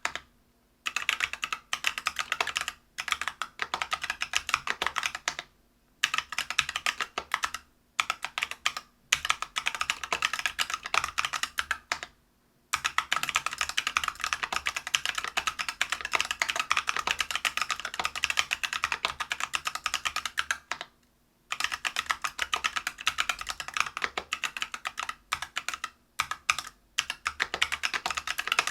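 Typing on a Whale 75 mechanical keyboard with stock, unlubed Neapolitan Ice Cream 63.5 g tactile switches on a brass plate, with Geekark PBT keycaps. Fast runs of keystrokes are broken by several brief pauses.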